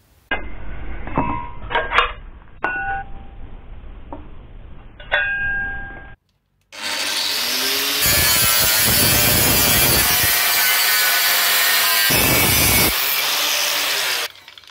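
Angle grinder starting up and cutting through a steel tube clamped in a vise, a loud continuous grinding that stops near the end. Before it, a few metallic clinks and knocks with short ringing tones.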